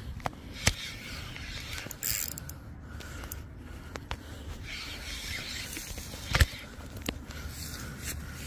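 Spinning or casting reel being worked while a hooked sturgeon is fought, its mechanism clicking and scraping, mixed with handling rubs and a few sharp knocks, the loudest about six seconds in.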